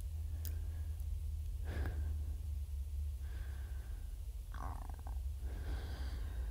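Quiet breaths and a faint click and scrape of a knife and fork on a plate of spaghetti, over a steady low hum.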